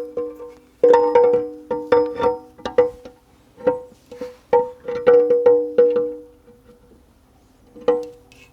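Repeated metal-on-metal taps on a steel part of a Borg Warner T19 manual transmission, irregular at one to two a second, each ringing on at the same pitch; they stop about two-thirds of the way in, with one last tap near the end.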